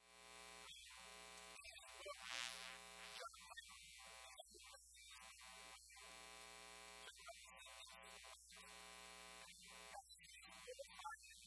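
Near silence with a faint steady electrical mains hum and buzz, which cuts out briefly again and again.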